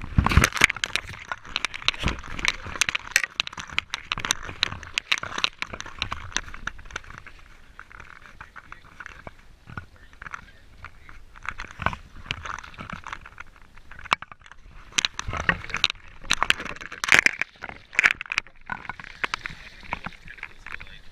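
Water splashing and sloshing against a GoPro's waterproof housing at the sea surface, with many sharp crackles and knocks, in louder bursts near the start and again about two-thirds through.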